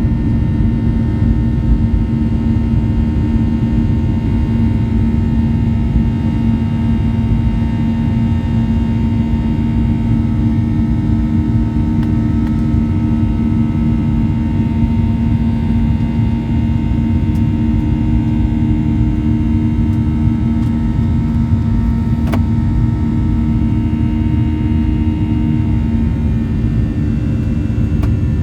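Steady cabin noise of a Boeing 737-900 in flight: a loud, even rumble of the jet engines and rushing air, with a constant low hum running under it. A single sharp click sounds about 22 seconds in.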